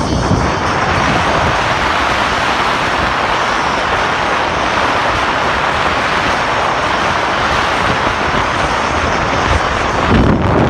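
Steady rushing noise of wind buffeting the microphone during a ride, with a brief low rumble near the end.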